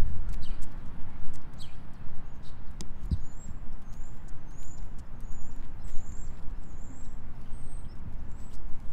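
Wind rumbling and buffeting on the microphone, with a few light clicks in the first seconds. From about three seconds in, a small bird gives short high chirps about once a second.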